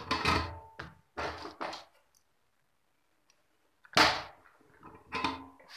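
Knocks and clatter from parts being handled on a workbench: a quick run of knocks in the first two seconds, a louder knock about four seconds in, and a few more near the end.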